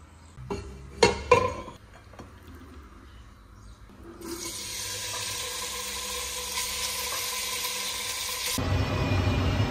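A few knocks and clatters of handling, then raw pork pieces sizzling steadily in hot oil in a cooking pot once dropped in. The sizzle cuts off suddenly near the end.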